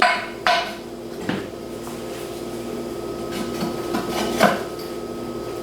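A few scattered metallic clanks and knocks of metal parts being handled and set down, the loudest two near the start and one near the end, over a steady machine hum.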